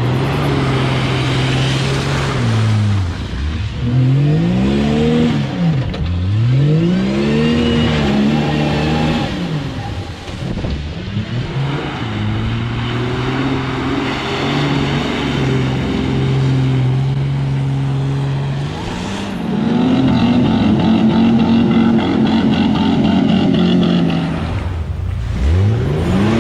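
Car engine idling and revved several times; each rev rises and falls in pitch, with revs about four, six and eight seconds in and another near the end.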